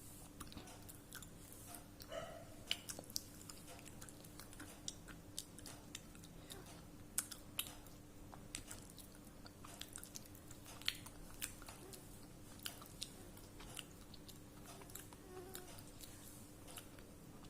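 A person biting and chewing pieces of baked clay pot, with many sharp, crisp crunches scattered through, a few of them standing out louder.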